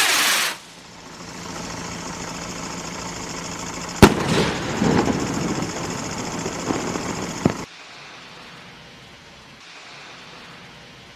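A firework rocket from a consumer rocket pack bursting: a steady hiss, then about four seconds in a single sharp bang, followed by a few seconds of crackling with a few smaller pops, which cuts off suddenly.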